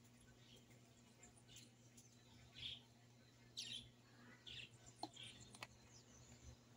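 Faint bird chirps: short, high calls about once a second, over a low steady hum.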